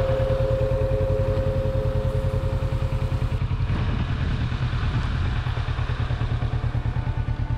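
Kawasaki Versys 650's parallel-twin engine running, a steady pulsing rumble. A ringing tone fades out about three seconds in.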